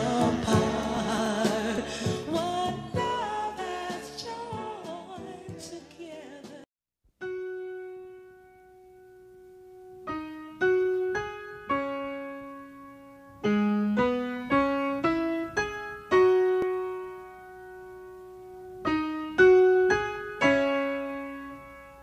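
Background music: a full song fades out over the first six seconds, then, after a brief silence, slow solo piano notes are played one or a few at a time, each ringing and dying away.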